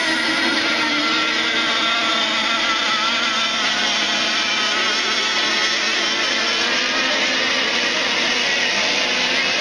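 Several radio-controlled racing boats' small engines running flat out on the water, a steady high-pitched whine made of several wavering pitches overlapping.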